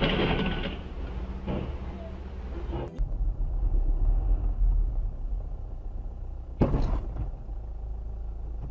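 Car traffic noise heard from inside a moving car: first a hissy road noise, then, after an abrupt change about three seconds in, a deep engine and road rumble. A single sharp knock comes about two-thirds of the way through.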